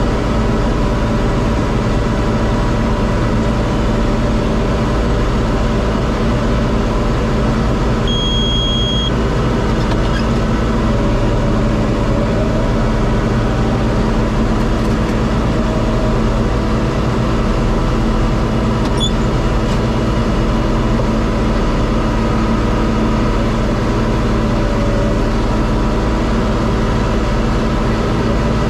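John Deere 4250 tractor's six-cylinder diesel engine running steadily at constant speed. A single electronic beep lasting about a second sounds about eight seconds in.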